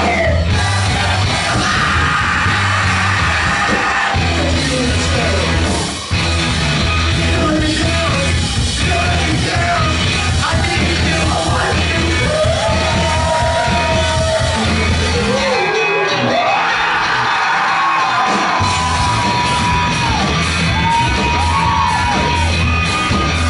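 Live rock band playing loud in a club: a repeating bass line and drums under a singer's yelled, swooping vocals, with guitar. About sixteen seconds in the bass and drums drop out for a couple of seconds, leaving the voice and guitar, then come back in.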